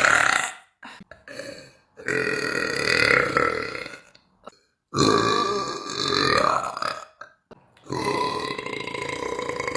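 A woman burping: very deep, long burps, three of about two seconds each, following the tail end of one more right at the start.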